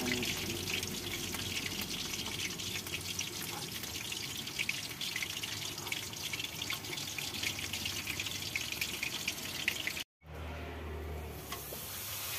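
Meat kebab pieces deep-frying in hot oil in a steel kadhai: a steady crackling sizzle with many small pops. The sound cuts out for a moment about ten seconds in, then a papad frying in the oil gives a softer, steadier sizzle.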